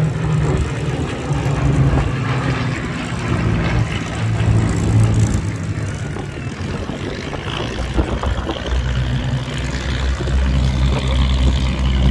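Piston engines of a formation of four propeller-driven warbird fighters droning overhead, growing louder in the last few seconds.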